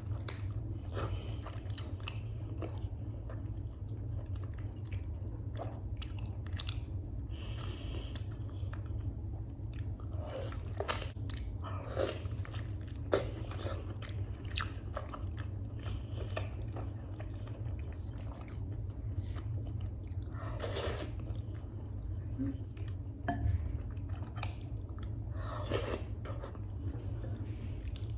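Close-miked chewing of freekeh and beef: irregular wet mouth clicks and smacks, a few of them louder, over a steady low hum.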